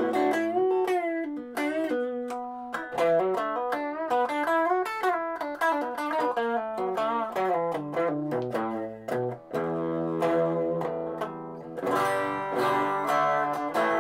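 Telecaster electric guitar played through a Donner 5-watt mini amp on a clean tone at a comfortable, moderate volume. Single-note lead lines with string bends, then fuller ringing chords strummed near the end.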